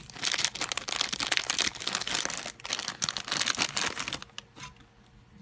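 Plastic packaging crinkling and tearing as it is opened by hand, in quick irregular crackles that stop about four seconds in.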